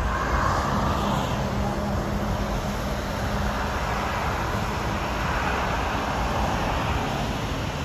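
Highway traffic noise: a steady, even rush with a low hum underneath.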